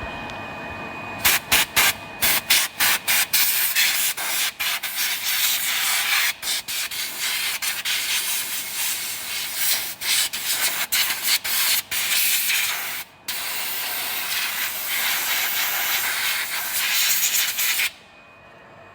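A loud, high-pitched hissing, rasping noise that starts about a second in, is cut off again and again for brief moments, and stops abruptly near the end.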